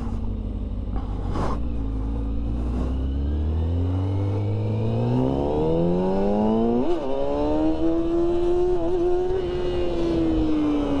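Dirt bike engine pulling hard in second gear, its pitch climbing steadily for several seconds toward the rev limiter. It stutters briefly about seven seconds in, holds high, then falls away near the end as the throttle is eased off.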